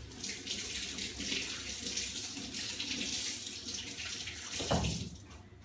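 Kitchen tap running into a sink, a steady hiss that stops about five seconds in, with a thump shortly before it stops.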